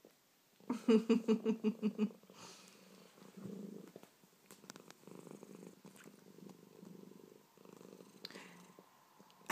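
Domestic cat purring while it has the hiccups. Near the start comes a loud, quick pulsing for about a second and a half, followed by a softer, steady purr with a few faint clicks in the middle.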